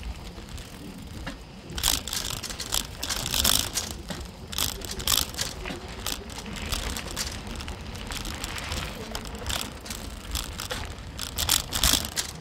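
Mountain bike with a suspension fork riding along a dirt forest trail. There is a steady low rumble of tyres and motion, broken by irregular clicks and clatters as the bike rattles over bumps, twigs and leaves.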